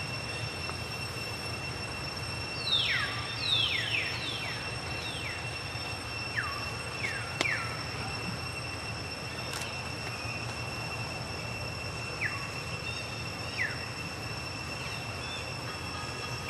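A baby monkey squeaking: about eight short, high-pitched squeals, each sliding quickly down in pitch, a cluster of six over a few seconds and two more later on, over a steady high whine and low rumble.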